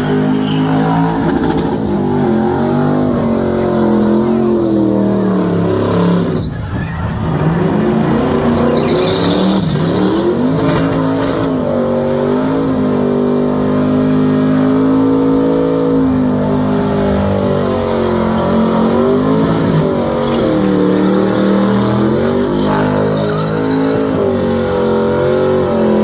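A car's engine held at high revs during a burnout, its pitch rising and falling as the throttle is worked while the rear tyres spin. The revs dip briefly about six seconds in, then climb again and hold.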